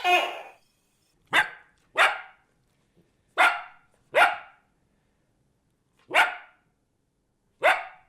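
A dog barking: about seven short, sharp barks, a second or two apart.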